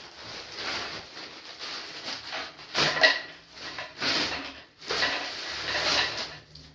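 A plastic courier mailer bag being torn open and crinkled in irregular bursts, loudest about three seconds in, then the rustle of a plastic-wrapped bottle being pulled out of it.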